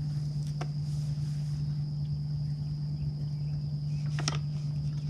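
Steady low hum of an electric trolling motor running, with a steady high-pitched whine above it and sharp clicks, one about half a second in and a double click about four seconds in.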